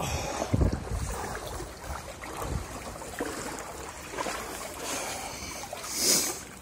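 A person wading through floodwater, the water sloshing around the legs with each stride, with a louder swish about six seconds in.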